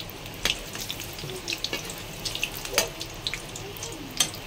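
Batter-coated stuffed green chillies (mirchi pakodas) frying in hot oil in a kadhai, a steady sizzle with many small crackling pops. A metal slotted spatula clinks against the pan three times.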